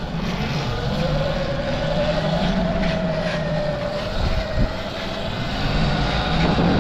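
Sur-Ron X electric dirt bike under way, its motor giving a steady whine that rises a little in pitch over the first couple of seconds, over a low rushing noise of wind and tyres. A single short knock comes about two-thirds of the way through.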